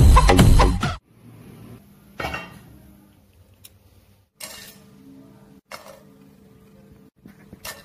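Music ends abruptly about a second in. Then come a few light, separate clinks and taps, about five, a second or more apart, as whole spices such as cinnamon bark are dropped into a dry non-stick frying pan.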